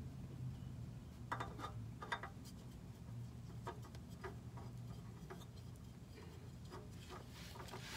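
Faint scattered clicks and scrapes of hands fumbling a new spin-on oil filter against its mount under a car, over a steady low hum.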